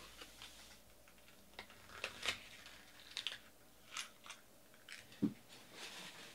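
Trading cards being handled and set down on a table: a scattering of faint clicks and rustles, with a soft thump about five seconds in.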